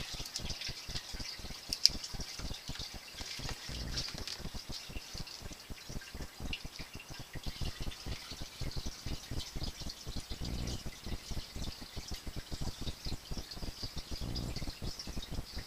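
Newly installed sump pump running in the pit, water gurgling and splashing as it pumps the sump down. A sharp click comes about two seconds in.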